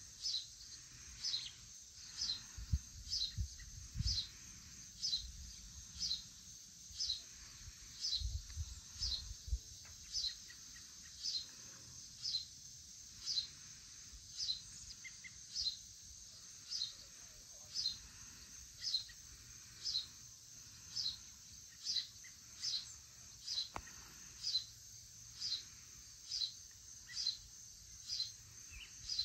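A bird's sharp, high call note repeated steadily, about three every two seconds, over a steady high-pitched chorus of crickets and other insects. A few low rumbles come in the first few seconds and again around eight seconds in.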